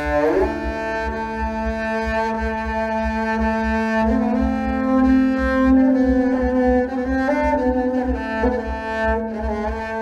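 Yaylı tambur (bowed Turkish tanbur) played with a bow: long, sustained bowed notes, moving to a new pitch about four seconds in.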